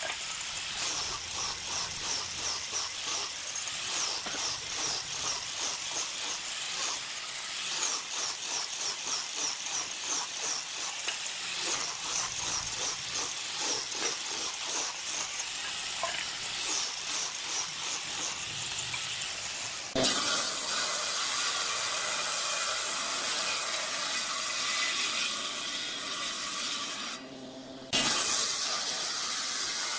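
A wooden board being rubbed back and forth by hand, sanding it: quick, regular scraping strokes. About two-thirds of the way in, the sound cuts suddenly to the steady noise of a table saw cutting wood, with a brief drop and another sudden change near the end.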